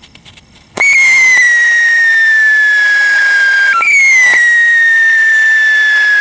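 Whistling firework sticks (a 'musical mala') going off. A loud, shrill whistle starts about a second in and slides slowly down in pitch for about three seconds. A second falling whistle follows straight after.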